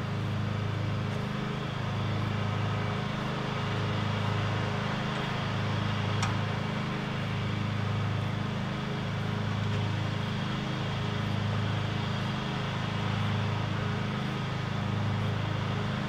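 Woodland Mills portable band sawmill's petrol engine running steadily, not yet cutting, its hum wavering slowly and regularly.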